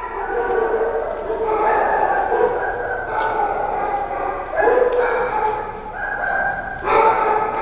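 Shelter dogs in kennels barking and yelping at once: a continuous din of many overlapping voices, swelling louder a couple of times.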